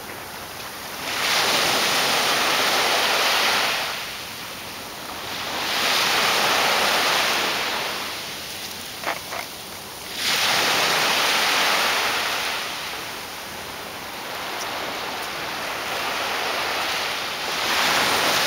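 Small sea waves breaking and washing up a sandy beach, the surf swelling and fading about every four to five seconds.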